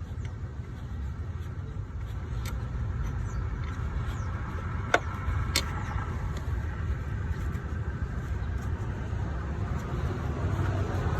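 A vehicle's steady low rumble, with a few sharp light clicks, the loudest about five seconds in.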